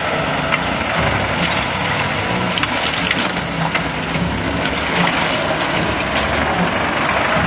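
A vehicle engine running steadily, with many small clicks and cracks scattered over it.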